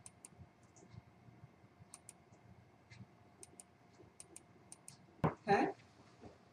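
Faint, scattered small clicks and ticks over quiet room tone, with one sharper click and a brief burst of a person's voice a little past five seconds in.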